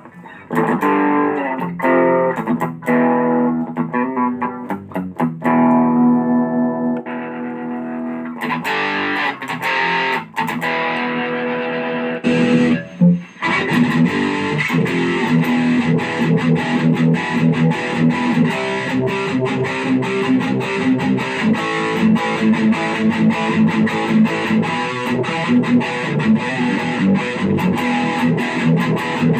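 Electric guitar played through a BOSS OD-20 Drive Zone overdrive/distortion pedal: held, ringing chords and notes, then after a short break about 13 seconds in, denser, brighter distorted playing with quick picking.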